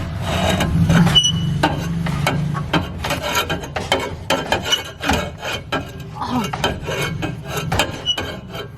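A hand saw rasps back and forth through the old exhaust pipe in quick, irregular strokes.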